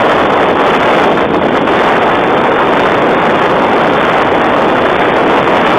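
Steady wind buffeting the microphone, a loud, even rushing noise with no breaks.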